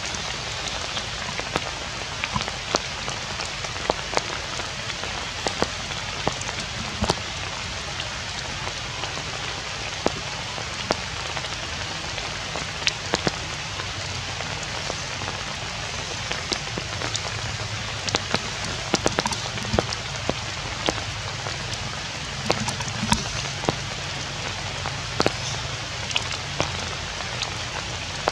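Steady rain falling on stones and vegetation, with many sharp clicks of single drops landing close by.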